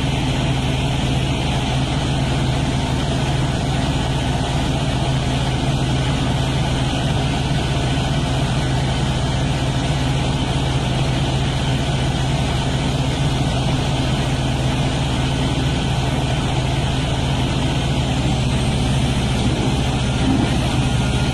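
Ship's engine running at a constant speed: a steady low drone that holds unchanged throughout, with no rise or fall in pitch.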